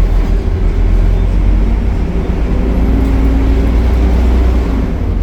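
Optare Solo single-decker bus's engine and Allison automatic driveline running as a steady, loud low drone with a steady hum above it. It pulls harder through the middle, then eases off about five seconds in.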